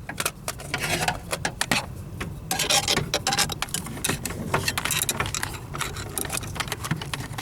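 Handling noise: irregular clicks, taps and small rattles as things are moved about by hand, over a steady low hum.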